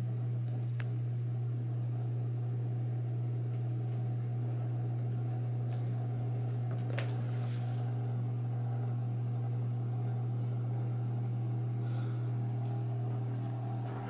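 View Fan ceiling fan running steadily, its motor giving a constant low hum, with a faint tick or two.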